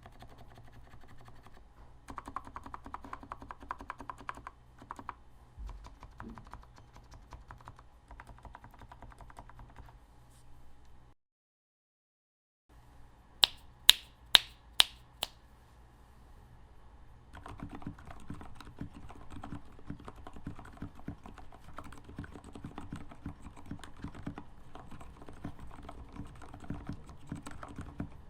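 Typing on a modded Keychron K2 mechanical keyboard, a steady patter of key clicks that stops dead about eleven seconds in. After a second and a half of silence, five loud, sharp clicks sound about a second and a half later, then typing starts on a DZ60 custom modded mechanical keyboard, a denser run of key strokes.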